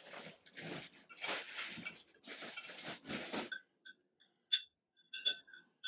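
Breathless, wheezing laughter in several gasps. It stops about three and a half seconds in and is followed by a few light clinks of glass.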